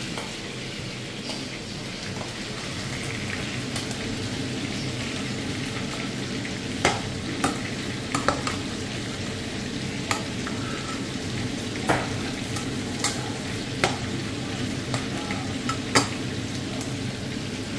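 Meat pieces sizzling as they fry in a nonstick frying pan, stirred with a metal spoon. From about seven seconds in, the spoon clicks sharply against the pan every second or two.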